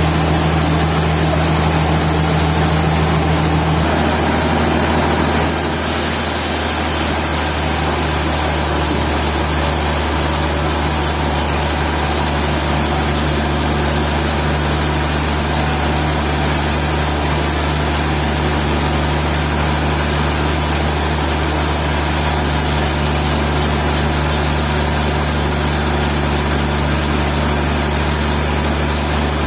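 Sawmill machinery running steadily: a constant engine drone with a loud even hiss over it, shifting slightly in tone a few seconds in.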